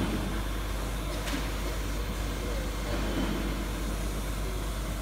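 Steady hum and noise of workshop machinery running, with a strong low hum underneath and one faint click about a second in.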